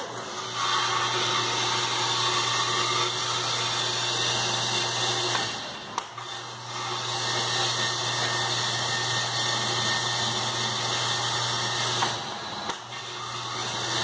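Keg washer's electric circulation pump running, with a steady hum and hiss as it pushes hot caustic soda solution through the inside of a stainless-steel beer keg. It cuts out briefly twice, about halfway through and near the end, each time with a click.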